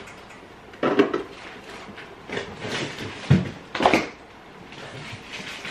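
Items being taken out of and moved around in a refrigerator being cleaned out: bottles and jars knocking against the shelves, with rustling of packaging. There are a few sharper knocks about a second in and again around three to four seconds in.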